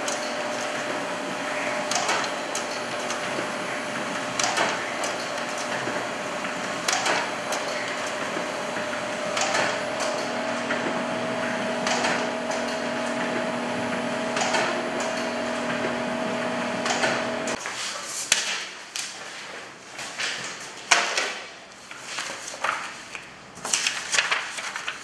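HP LaserJet M436nda laser copier running a multi-copy job: a steady hum with a sharp clack about every two and a half seconds as each copy passes through. The machine stops about three-quarters of the way in, followed by paper rustling and clicks as the printed sheets are handled.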